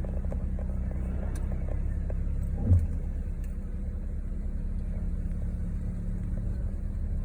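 2012 Honda Accord's four-cylinder engine running steadily with a low hum. A brief low thump comes about three seconds in.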